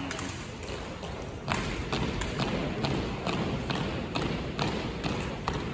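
Sharp knocks and slaps from an exhibition rifle drill routine, coming two or three a second in a fairly even rhythm from about a second and a half in, over a low crowd hubbub.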